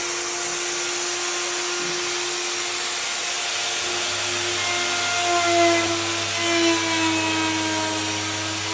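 Handheld electric plunge router running at full speed with a steady high whine, cutting hinge recesses into the edge of a teak door. In the second half the sound swells a few times and the pitch wavers as the bit bites into the wood.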